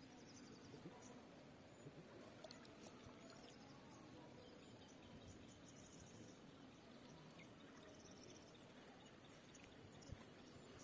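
Near silence: faint steady outdoor background, with one soft click near the end.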